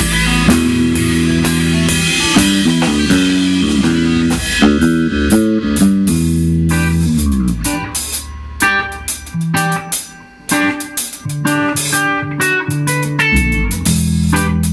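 Instrumental rock trio playing live: electric guitar, bass guitar and drum kit. About halfway through the music thins to short, clipped notes with gaps and the low bass drops out, then the full band with held bass notes comes back near the end.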